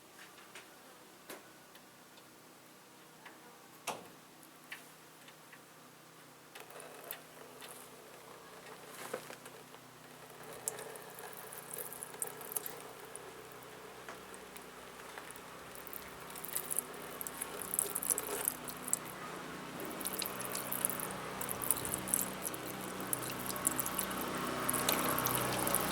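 A few scattered clicks and knocks, then a patter and hiss of liquid running that swells steadily louder over the second half: the old oil draining from the Lifan engine of the homemade mini tractor.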